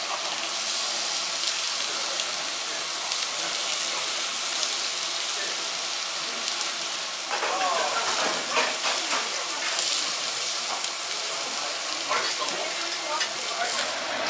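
Lamb and vegetables sizzling steadily on a grill, a constant crackling hiss, with brief voices in the background about halfway through.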